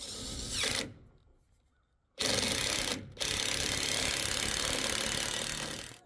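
Power drill driving screws into wood framing, run in three bursts: a short one that winds down as it stops, a second short one, then a longer run of about three seconds.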